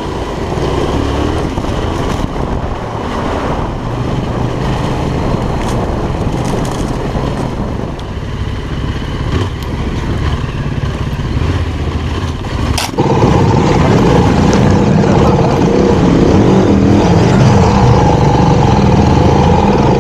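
Trail motorcycle engine running on the move, heard from the rider's own bike, with wind noise. About 13 seconds in there is a sharp click, and the engine sound is louder and steadier from then on.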